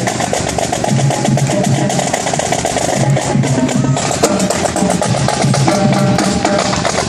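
Marching drumline playing a fast, busy beat of snare drum strokes over lower drums, with a held musical tone under it.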